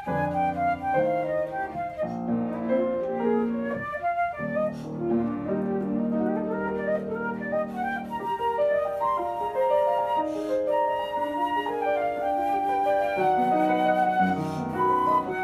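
Flute and grand piano playing together, the flute carrying a melody over piano chords. The flute rests briefly near the middle while the piano goes on.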